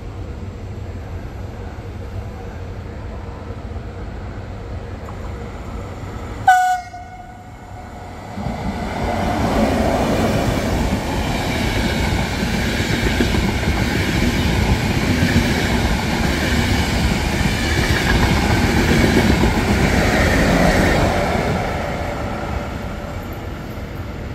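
A passing Trenitalia Intercity train: a short, high horn blast sounds about a quarter of the way in, then the noise of the coaches' wheels on the rails builds up, stays loud through the middle and fades near the end as the train goes by.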